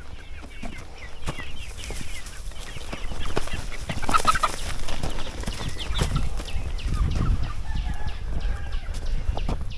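Domestic chickens clucking, with a louder short call about four seconds in, over the repeated steps of someone walking on a trail.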